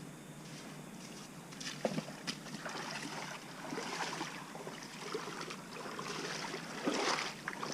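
Footsteps wading across a shallow creek, water sloshing around the boots, with scattered small knocks and snaps.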